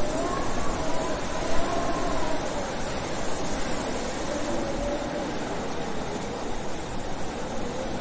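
Blizzard wind howling: a steady rush of wind noise with thin whistling tones that waver up and down, easing slightly toward the end.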